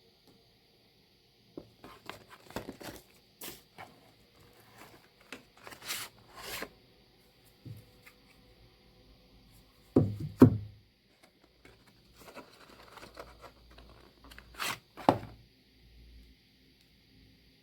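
Handling noises from unboxing a power bank: packaging rustling and scraping with scattered clicks and taps, and two louder thumps, one about ten seconds in and one about fifteen seconds in.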